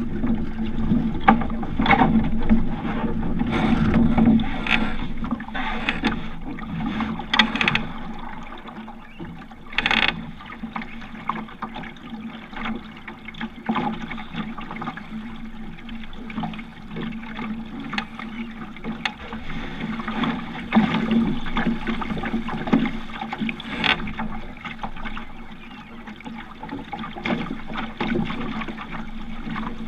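Water splashing and lapping against the hull of a sailing dinghy under way, with wind buffeting the microphone and scattered knocks and clicks from the boat. Louder and busier for the first ten seconds or so, then quieter.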